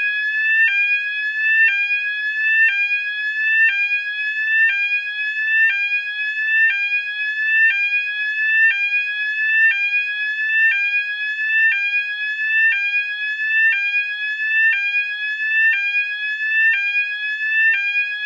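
Electronic fire alarm sounder sounding a loud, about 101 dB rising sweep tone: each sweep climbs in pitch over about a second, then drops back sharply and starts again, repeating steadily.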